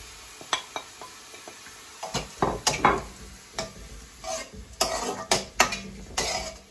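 Steel spoon scraping and knocking against a metal kadai as sliced onions and spice powders are stirred in hot oil, over a light sizzle. A few separate taps come in the first second, then quicker runs of scraping and knocks from about two seconds in.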